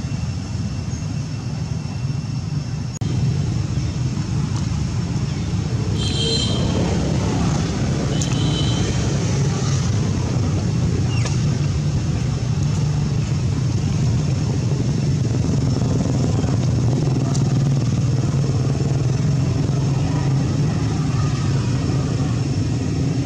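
A steady, low engine drone like motor traffic, stepping up in loudness about three seconds in, with two brief high chirps at about six and eight seconds.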